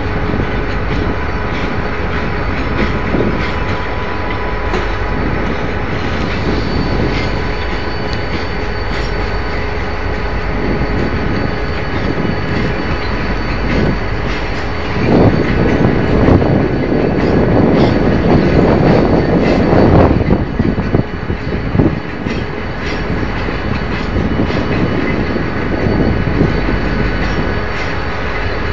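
Train wheels rolling slowly over station tracks, with clacks over rail joints and points and a faint, steady, high wheel squeal. For several seconds about halfway through, the running grows louder and rougher.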